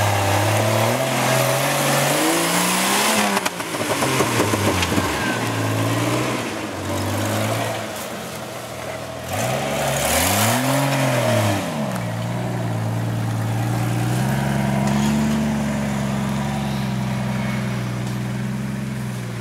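Off-road Jeep Wrangler's 4.0-litre straight-six revving up and down again and again under load as it claws over a steep, rutted slope. About twelve seconds in, the revving gives way to an engine holding a steady note.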